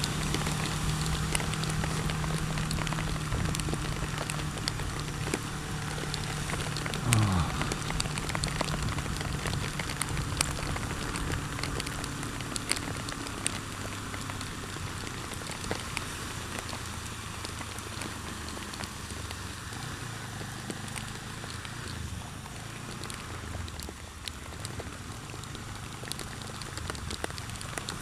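Heavy rain pattering, with many sharp drop-ticks, over a Kawasaki ER-6f's parallel-twin engine running low and steady. About seven seconds in the engine note falls sharply, then settles at a lower hum.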